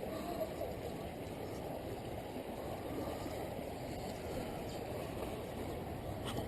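Steady low rushing of shallow flowing river water, with no distinct events.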